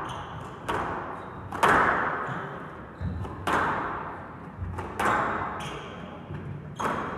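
Squash ball being struck by rackets and smacking off the court walls during a rally, about five sharp hits at irregular intervals, each ringing out with a hall echo. The loudest hit comes about a second and a half in.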